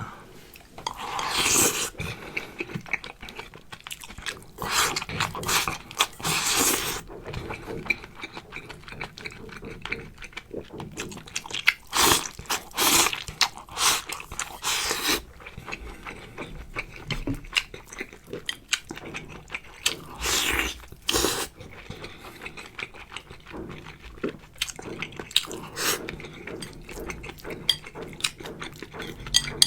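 Close-miked eating of black pepper beef fillet rice: chewing and mouth noises with irregular short clicks and bursts of noise.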